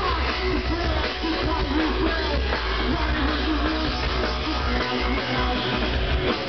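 Live rock band playing loud through a festival PA, heard from within the crowd: heavy bass, electric guitar and drums, with a wavering lead line over the top.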